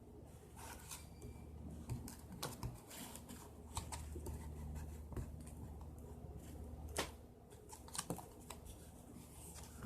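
Homemade glue slime being kneaded by hand: faint, irregular sticky clicks and small pops as it is pressed and pulled.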